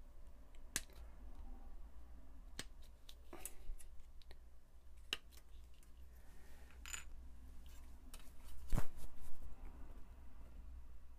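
Sprue cutters snipping plastic model-kit parts off their sprue: a handful of separate sharp snips, the loudest about nine seconds in.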